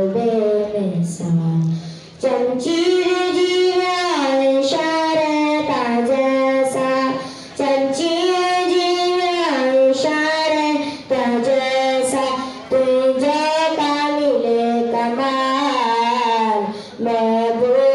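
A boy singing a naat unaccompanied into a microphone: long held notes that glide and waver, in phrases broken by short breaths about every three to five seconds.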